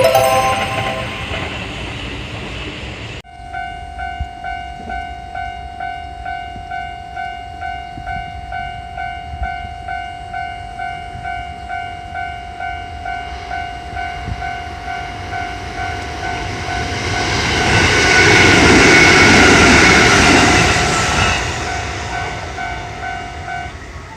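Japanese railroad crossing alarm ringing a steady, evenly pulsing "kan-kan" tone. A Kintetsu Kyoto Line electric train runs past through the crossing, its noise building to the loudest part of the clip and then fading away. The alarm stops near the end.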